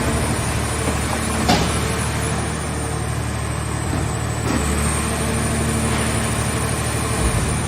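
Scrap car shell baler's engine and hydraulic drive running steadily under load, with a sharp knock about a second and a half in.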